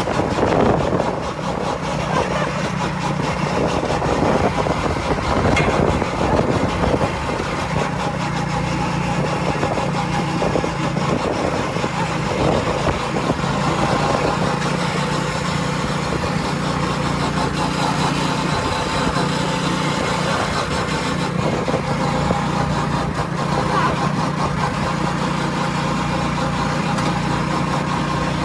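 Go-kart's small engine running at a steady, near-constant speed while the kart is driven, a continuous low drone over road and rattle noise.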